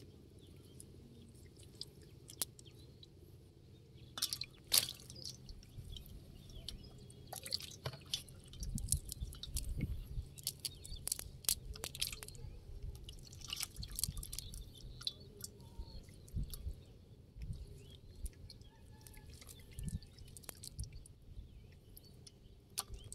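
A wet nylon fishing net being handled and pulled through the hands on mud: irregular rustles, clicks and small wet sounds.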